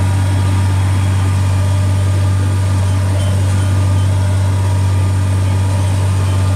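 Ford TW-35 tractor's turbocharged six-cylinder diesel engine running steadily under load while pulling a disk, heard from inside the cab as a constant low drone.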